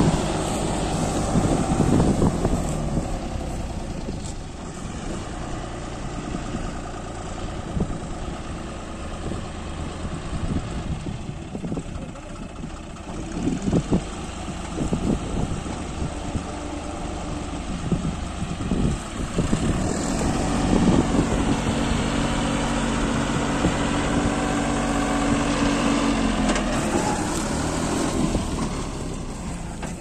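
Diesel engine of a John Deere 5530 tractor running a Dasmesh 912 tractor-mounted combine harvester, running steadily with the harvester's machinery turning. A steady hum comes up louder for several seconds in the second half, with a few knocks along the way.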